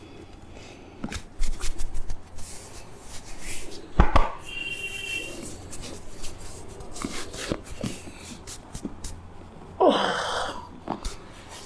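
Head massage: hands give irregular sharp slaps and taps on the head, with a louder knock about four seconds in and a short noisy burst near ten seconds.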